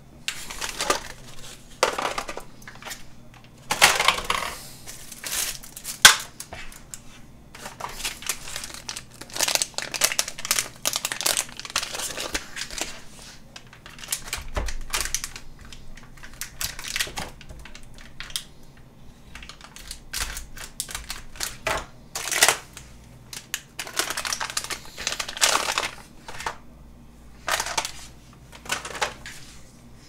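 Packaging being handled as hard drives are unpacked: irregular rustling and crinkling of plastic and cardboard, with scattered clicks and knocks and one sharp click about six seconds in.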